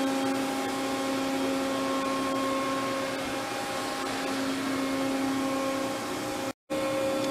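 Steady hum of running industrial machinery: a constant drone with a few fixed tones over a hiss. It drops out completely for a moment near the end.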